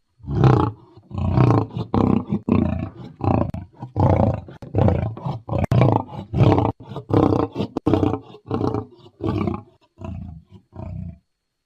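Asiatic lion roaring: a bout of about fifteen deep, grunting roars at roughly one and a half a second, the last few weaker before the bout ends.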